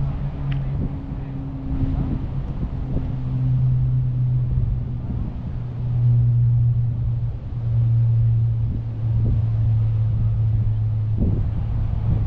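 A motor vehicle's engine running close by: a steady low hum that slowly drifts lower in pitch.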